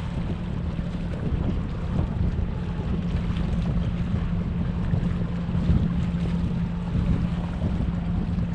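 Steady low engine hum with wind rumbling on the microphone.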